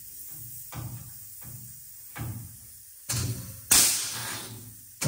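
Pneumatic blind-rivet gun (air riveter) setting rivets in the windshield-frame bonding strips. It gives a short hissing blast of air a little past three seconds, then a louder one just before four seconds that fades over about a second.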